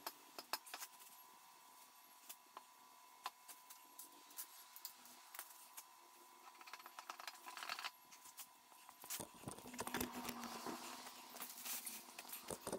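Scattered light clicks, scrapes and rustles of hands working at the end hub of a street sweeper's main barrel broom among its stiff plastic bristles, getting busier and louder in the last few seconds.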